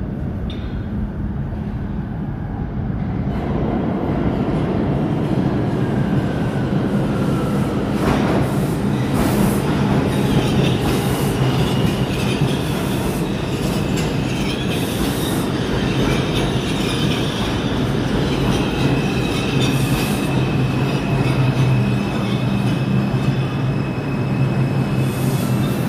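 New York City subway train pulling into the station: a rumble of wheels on rail that builds over the first few seconds, sharp clacks as the wheels cross rail joints, and a high metallic squeal through the second half as the train slows.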